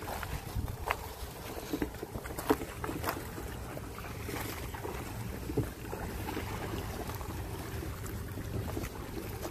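Wind rumbling on the microphone over the wash of shallow water lapping against a rocky shore, with a few sharp knocks and splashes, several in the first three seconds and one more about halfway through.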